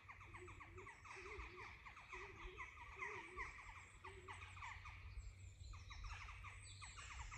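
Faint chorus of small songbirds, many quick high chirps and trills overlapping. Through the first half a lower call repeats about once every second.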